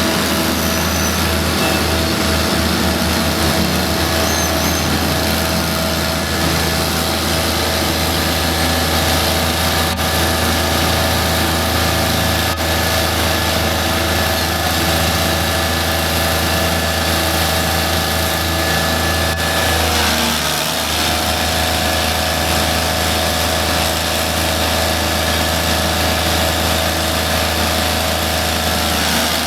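An engine running steadily at a constant pitch, with a brief dip and a small change in pitch about twenty seconds in.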